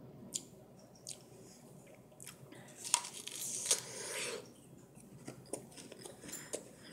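A bite into a raw pear about three seconds in: a crunching, tearing burst lasting about a second and a half. Scattered soft mouth clicks and chewing come before and after it.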